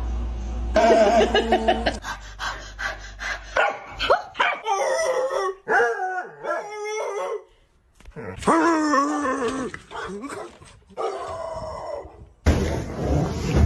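Dog barking and making several drawn-out, wavering howl-like calls.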